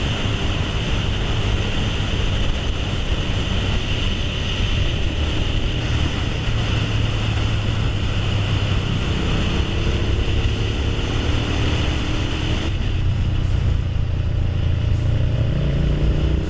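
Honda VTR1000 V-twin motorcycle with a loud exhaust running at riding speed, its engine rumble mixed with wind rush. About three-quarters of the way through, the wind noise drops and the engine note then climbs as the bike accelerates.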